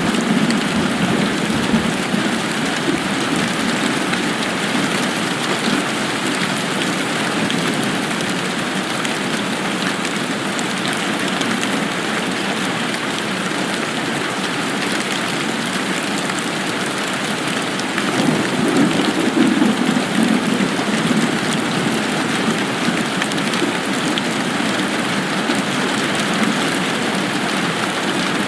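Steady rain falling, an even hiss with no break. A low rumble swells up briefly about two-thirds of the way through.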